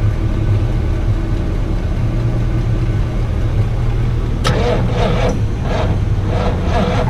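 A motor vehicle's engine running steadily, with a rougher, rhythmic edge coming in about halfway through.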